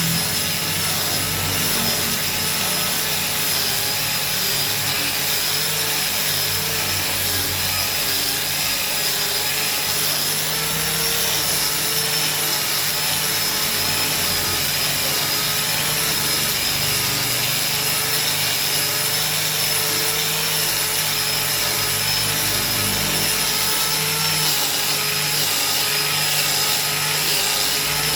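Electric angle grinder with a sanding disc running steadily against a solid-wood chair seat: a constant high motor whine over the rasp of abrasive on wood, with the pitch wavering slightly as the disc is pressed and moved.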